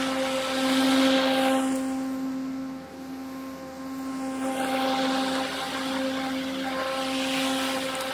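Hart 20-inch 40V brushless battery push mower running under cut, a steady electric whine over the rush of the spinning blade. It grows louder as the mower passes close, fades about three seconds in as it moves away, then swells again.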